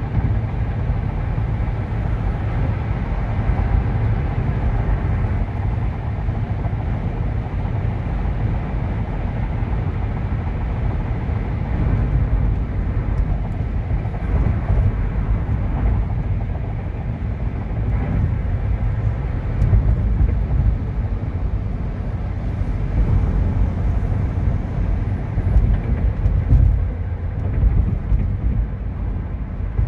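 Car cabin road noise at highway speed: a steady low rumble of tyres on concrete pavement and the running car, with small rises in level but no sharp events.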